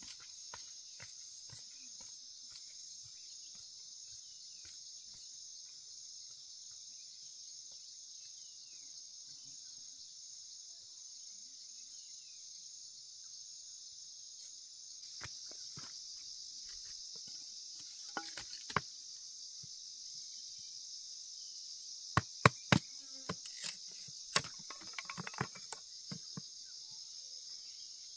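Insects droning steadily in a high, even chorus. Short knocks and taps join from about halfway in, with several loud, sharp strikes in the last third, typical of hand work on wood or bamboo.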